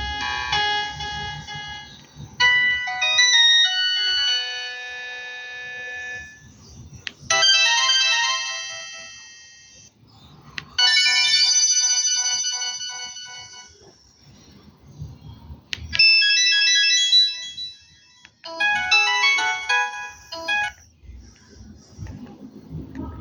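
Samsung GT-E1270 feature phone playing a run of its built-in ringtone melodies through its small speaker: about six short electronic tunes, one after another with brief gaps, some of them fading out.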